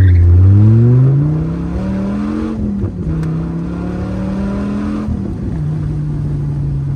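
1993 Dodge Viper RT/10's V10 engine accelerating hard from a standing start in a 0-60 mph run. It is loudest at the launch, its pitch climbs through the gear, drops at a shift about two and a half seconds in, climbs again, and shifts once more about five seconds in before settling to a steady note.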